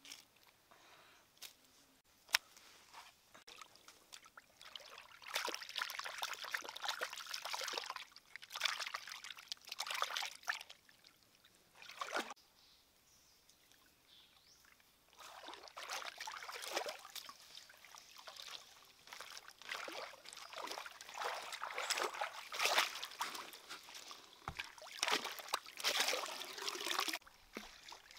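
Water sloshing and trickling in irregular bursts as food is rinsed and washed by hand in shallow stream water, with a pause of near quiet about halfway through.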